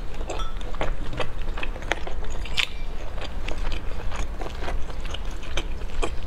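Close-miked chewing of a mouthful of food: irregular wet clicks, smacks and crunches, several a second.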